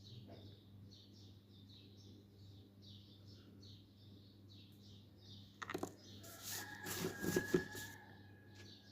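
A small bird chirping over and over, about two short chirps a second, over a low steady hum. About five and a half seconds in comes a louder burst of knocks and clatter with a brief ringing tone, lasting about two seconds.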